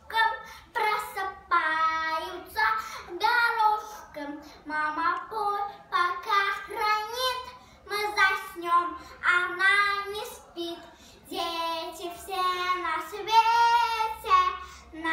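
A young girl singing a song about her mother unaccompanied, in phrases with short pauses for breath between them.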